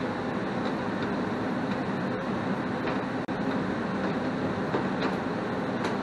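Goodman 80% single-stage gas furnace running steadily, its inducer motor and circulating blower giving a continuous hum and rush of air, with a few faint ticks. It is running although the thermostat has not called for heat, a fault put down to a bad thermostat wire.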